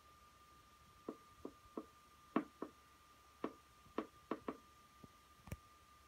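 Faint, irregular clicking: about ten short clicks and taps, unevenly spaced, over a thin steady high hum.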